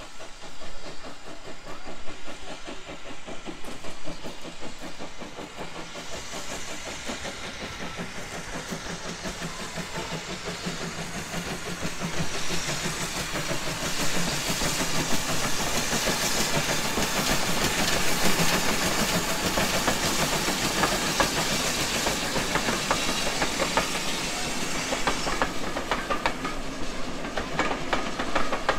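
GWR 5700 class pannier tank steam locomotive pulling away with its train: rapid, regular exhaust beats with steam hiss, building as it draws near and passes. Near the end the coach wheels clatter over the rail joints.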